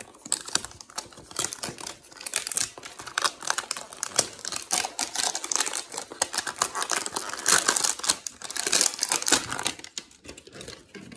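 Cardboard trading-card hanger box being torn open by hand and its wrapped contents pulled out: a run of dense crinkling and tearing, loudest a little past the middle and easing near the end.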